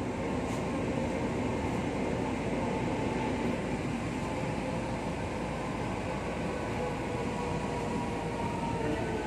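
Metro rail car heard from inside while running: a steady rumble of wheels on track, with a faint motor whine that falls in pitch near the end as the train slows for the last station.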